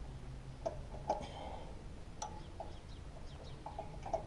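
A few light metallic clicks as a small engine's carburettor is handled and fitted onto its mounting, with short bird calls in the background.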